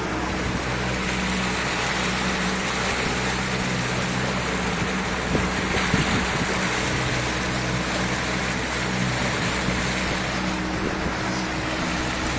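A motorboat under way: its engine running with a steady low hum, and water rushing along the hull and bow wave.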